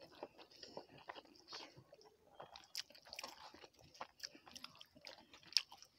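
Faint, close-miked chewing and small irregular mouth clicks of a person eating rice by hand.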